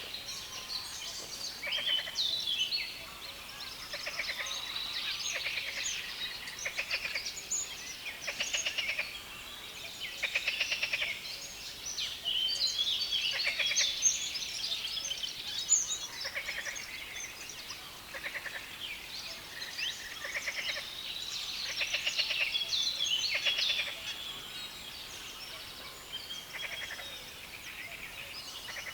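Several birds singing in a reed bed, their fast, scratchy, chattering phrases overlapping almost without a break.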